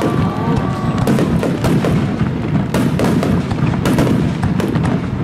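Aerial firework shells bursting overhead in a rapid barrage: several sharp bangs a second in irregular succession over a continuous low rumble.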